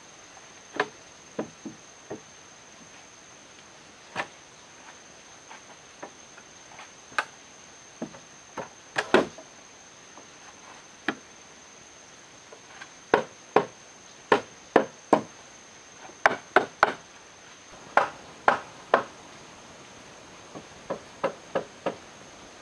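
Hammering on a rough-sawn timber frame: sharp wooden knocks, irregular and a second or more apart at first, then in quicker runs of several blows from about halfway on.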